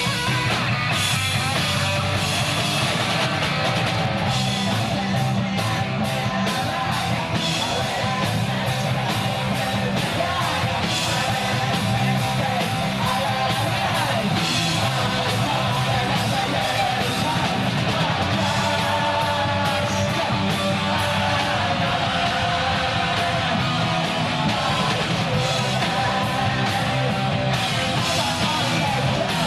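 Punk rock music playing loudly and without a break: electric guitar and drums with a shouted vocal.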